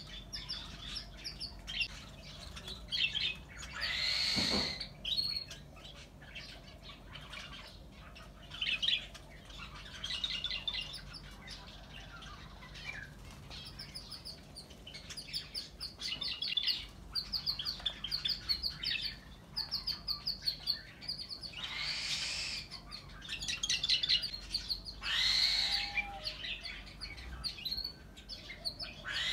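Aviary birds chirping and twittering in quick high series, broken three times by a louder, harsh squawk from a bigger bird.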